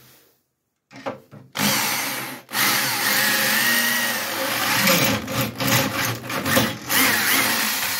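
A corded electric drill boring through 6 mm steel plate. After a few short knocks it starts about a second and a half in, pauses briefly, then runs on, its sound swelling and dipping as the bit cuts, and starts to wind down near the end.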